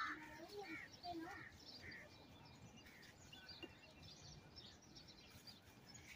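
Faint birds chirping in short, scattered calls over quiet outdoor background noise; the calls come mostly in the first two seconds and thin out after that.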